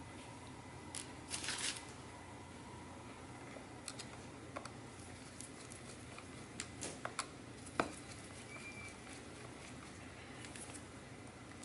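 Scattered small clicks and taps of a screwdriver and gloved fingers working on a laptop's parts and aluminium case, with a short rustle about a second and a half in. The sharpest click comes about two-thirds of the way through.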